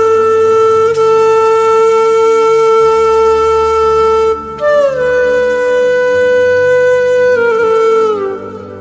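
Background music: a wind instrument playing long held notes. The first note is held steady for about four seconds; after a brief break a second, higher note settles and then steps down in pitch near the end.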